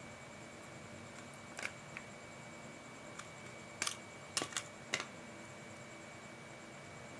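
Scattered small, sharp clicks and taps of hand work on a toy drone's plastic remote controller, a few single ones early and a quick cluster about four to five seconds in, over a faint steady high whine.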